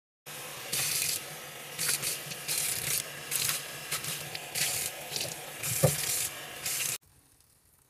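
Scrub brush scrubbing a dirty sink basin under a running tap, in repeated scratchy strokes over the hiss of the water, with a single knock about six seconds in. The sound cuts off abruptly near the end.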